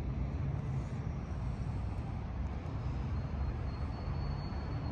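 Steady low outdoor rumble with no distinct event, like wind on the microphone or distant traffic. A faint thin high tone comes in during the last second and a half.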